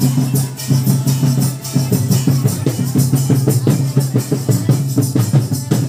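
Loud music with a fast, steady drum beat.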